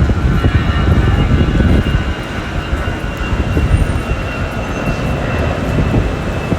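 Airliner jet engine noise, a dense low rumble, loudest for about the first two seconds and then easing to a steadier, lower level, with a faint high whine running through it.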